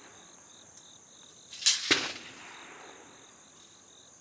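Steady high-pitched insect buzzing, with two sharp crunches close together about halfway through.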